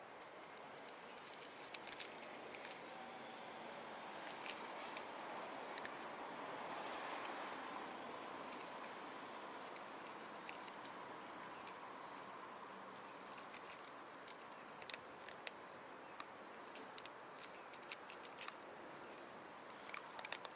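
Faint, scattered clicks of kittens chewing and eating from a dish, over a steady soft hiss. The clicks bunch up about three-quarters of the way through and again near the end.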